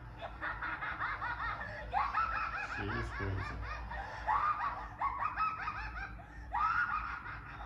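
High-pitched cackling laughter: quick, repeated 'ha-ha' runs rising and falling in pitch, with short breaks between them.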